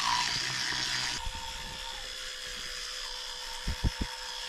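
Electric toothbrush buzzing steadily during tooth brushing, fuller and louder until about a second in, then lighter. Three quick low knocks come close together near the end.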